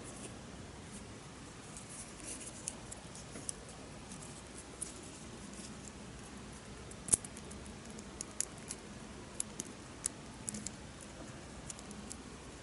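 Small plastic clicks and taps from a plastic capsule-toy figurine being handled, with one louder click about seven seconds in.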